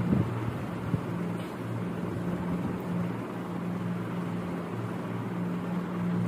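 Steady low mechanical hum with an even hiss, and one faint click about a second in.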